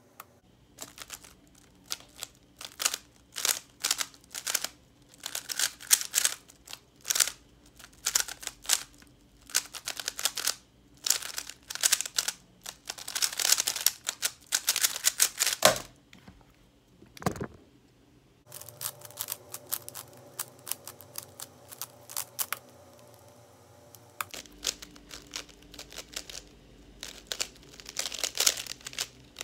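Rapid bursts of clicking and clacking from stickered plastic 3x3 speed cubes being turned fast in speedsolves: first a MoFang MF3RS, then, after a short pause about sixteen seconds in, a Yulong.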